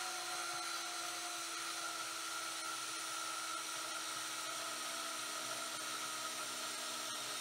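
Handheld portable metal-cutting bandsaw running at a steady pitch, its blade cutting through square hollow steel tube clamped in a vise.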